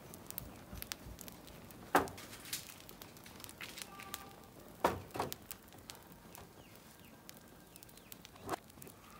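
Burning matchsticks crackling quietly, with a few sharp, irregular pops, the loudest about five seconds in.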